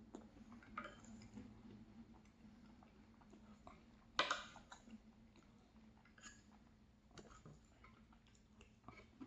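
Quiet eating of ice cream with a spoon: scattered small clicks and mouth sounds, with one louder short noise about four seconds in.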